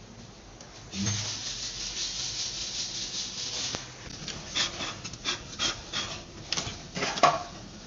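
Rubbing and scraping of close handling noise for a few seconds, followed by a string of light clicks and knocks.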